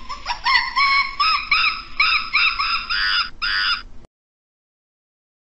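A primate calling: a quick run of about a dozen short hoots, each rising and falling in pitch. It cuts off suddenly about four seconds in.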